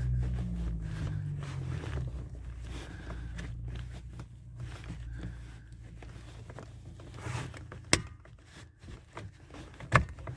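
Screwdriver scraping and prodding inside the back of a steering wheel to release the airbag's retaining clip, with a sharp click about eight seconds in and another near the end. A low hum fades out over the first couple of seconds.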